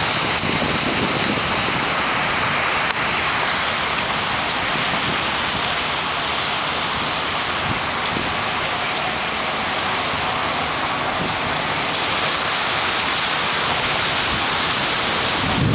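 Rainstorm: heavy rain falling in a steady, even hiss, with one short click about three seconds in.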